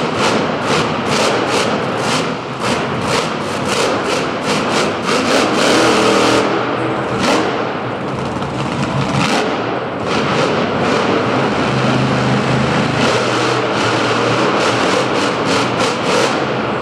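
Monster truck engine revving hard as the truck drives on a dirt arena floor, rising and falling in pitch. A rapid run of sharp cracks fills roughly the first six seconds, and steadier stretches of high revs follow.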